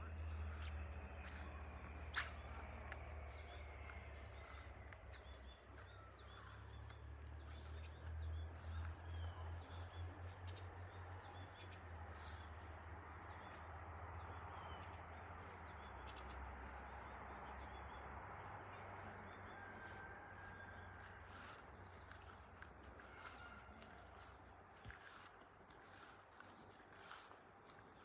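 Insects, cricket-like, trilling steadily in a high-pitched chorus. Under it is a low rumble that fades out near the end.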